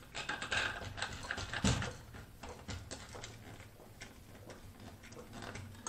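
Close-up sounds of someone drinking pink lemonade through a straw: small sucking clicks and swallows, busiest in the first two seconds with one louder gulp, then fainter.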